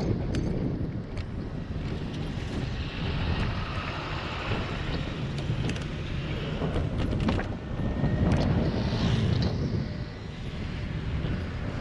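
Wind buffeting the microphone of a camera riding along on a moving bicycle, with scattered short clicks.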